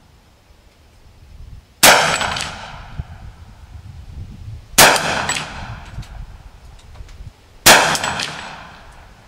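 Three shots from a Hi-Point 4095 carbine in .40 S&W firing hand-loaded rounds, about three seconds apart. Each crack is followed by a ringing echo that dies away over about a second.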